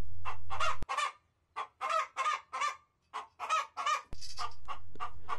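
Chickens clucking: a quick run of short calls, about four a second, from about a second in until about four seconds in, over a low steady hum at the start and end.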